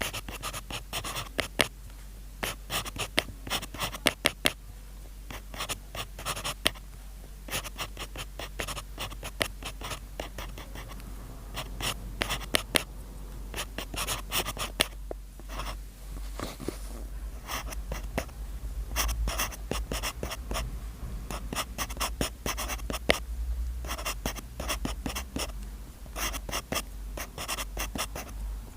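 Irregular scratching strokes and small clicks throughout, over a low steady hum.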